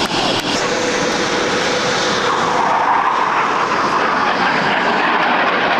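Blue Angels F/A-18 Hornet jets passing overhead with a loud, steady jet rush. The high hiss eases after about two seconds while a lower rush swells through the middle.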